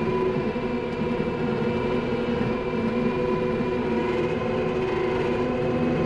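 Skid steer's engine and hydraulics running steadily with a continuous whine, heard from inside the cab while it pushes a hydraulic power rake through loose dirt.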